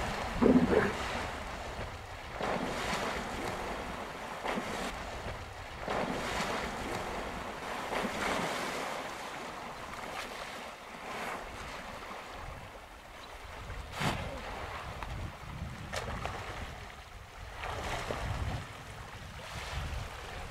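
Hippo surging through a waterhole: water splashing and churning in washes that swell and fade every couple of seconds, with wind rumbling on the microphone. A brief low pitched sound about half a second in is the loudest moment.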